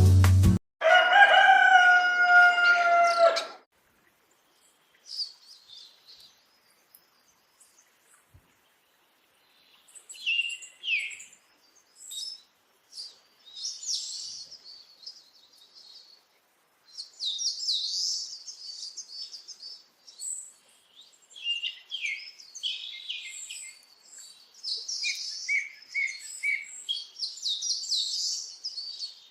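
A rooster crows once, one long call, then small birds chirp and twitter with high, short notes, sparse at first and busier from about halfway on.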